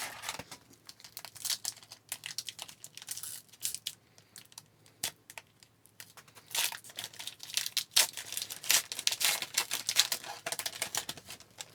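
Trading-card pack wrapper being torn open and crinkled in the hands: a run of irregular crackles and short rips with brief pauses.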